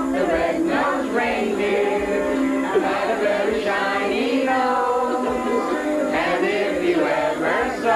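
A group of people singing together, several voices holding sustained notes at once.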